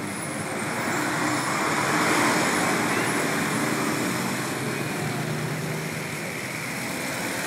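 Highway traffic: engines and tyres of passing buses, motorcycles and jeepneys as a steady noise, swelling about two seconds in as a vehicle goes by close.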